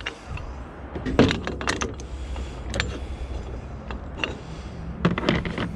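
Hand-lever hose swaging press being worked to finish crimping a swage fitting onto a jetter hose: a series of irregular metallic clicks and clunks from the lever and die mechanism. The loudest come about a second in and again near the end.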